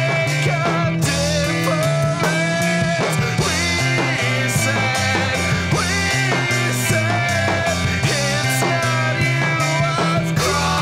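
Indie/noise rock band music: electric guitars over bass and a steady drum beat.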